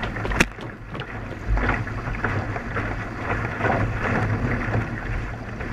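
Surfski being paddled hard with a wing paddle: blades catching and pulling through the water stroke after stroke, with water rushing along the hull and wind buffeting the microphone. A few short sharp clicks stand out.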